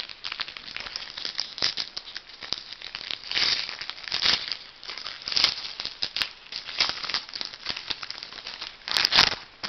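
Foil wrapper of a football trading card pack crinkling as it is torn open by hand: a run of rustles and crackles, loudest about nine seconds in.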